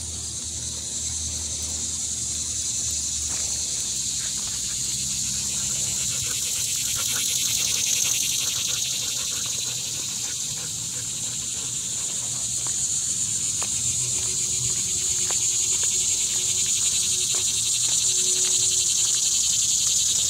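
A steady, high-pitched chorus of insects buzzing, swelling slightly toward the end, with a few faint ticks.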